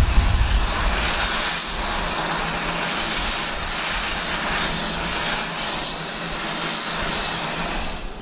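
Steam blowing off from a standing industrial tank steam locomotive, most likely its safety valves lifting: a loud, steady hiss that cuts off suddenly near the end as the steam stops. A few low thumps in the first half second.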